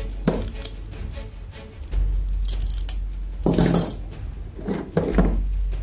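Metal toy handcuffs and their keys clinking and rattling as they are handled and set down, with a louder clatter a little past halfway. Background music with a deep, steady bass runs underneath.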